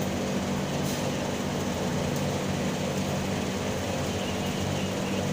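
A steady low machine hum with an even hiss over it and a few faint clicks.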